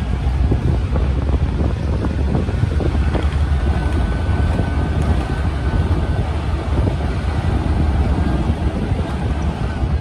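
A vehicle driving on a gravel dirt road: a steady low rumble of engine and tyres, with wind buffeting the microphone.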